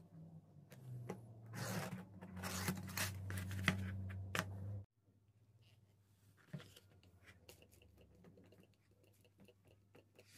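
A knife blade drawn along a steel ruler, cutting through a sheet of leather: scratchy rasping strokes with a few sharp clicks. It stops abruptly about halfway through, and only faint handling ticks follow.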